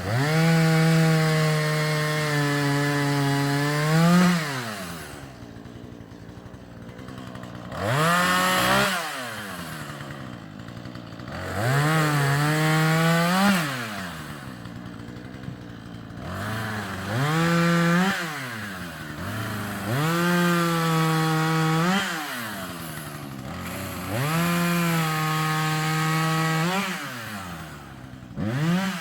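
Husqvarna 440e two-stroke chainsaw revved to high speed about six times, held for a second or a few each time, and dropped back to idle between.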